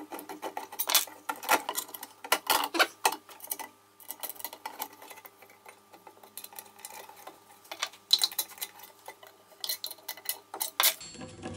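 Hex key and bolt clicking and clinking against a steel motor bracket as a bolt is loosened, with the roller chain clinking on its sprocket. The irregular metallic clicks come in clusters and thin out in the middle.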